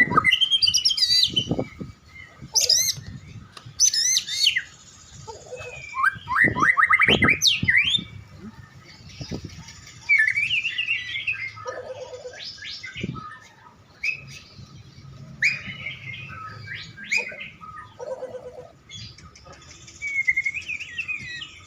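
White-rumped shama (murai batu) singing in loud bursts a few seconds apart: varied whistles, slurred phrases and fast rapid-fire trills. It is a contest songbird warming up its song before a competition.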